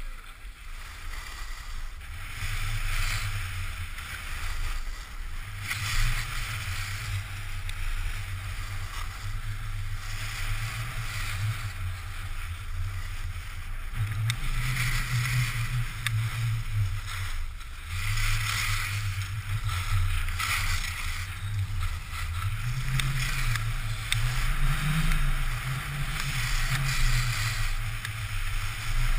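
Wind rushing over the GoPro Hero's microphone during a downhill ski run, a steady low rumble. Over it runs a hiss of skis sliding and scraping across packed snow, swelling and fading every few seconds.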